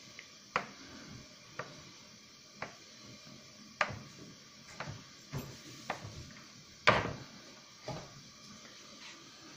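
Thin metal skewer pushed down through raw prosphoro loaves, ticking against the metal baking tray beneath at about one sharp tick a second, with one louder tick about seven seconds in.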